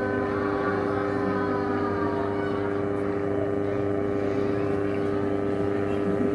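A man's voice holds one long, steady note in a melodic Quran recitation, amplified through a PA system.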